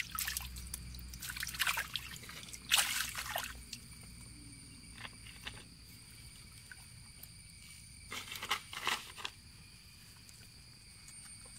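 Overflow water trickling steadily around a wire-mesh fish trap, with bursts of splashing and sloshing around the trap several times in the first four seconds and again about eight seconds in.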